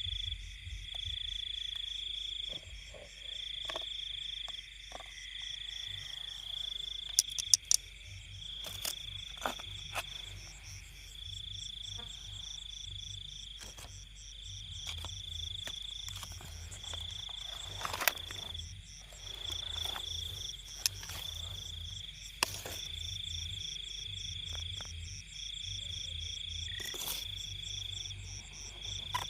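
Night chorus of frogs and insects in a rice field: a high trill repeating in bouts of a second or two over a fast, even, higher-pitched pulsing, with a low pulsing drone beneath. A few sharp clicks stand out.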